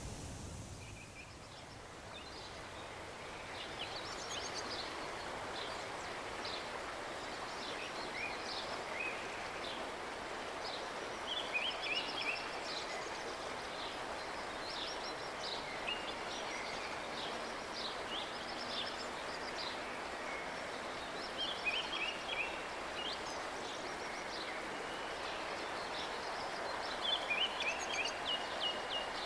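Steady hiss of flowing river water with songbirds chirping over it; a burst of quick, high chirps comes back several times.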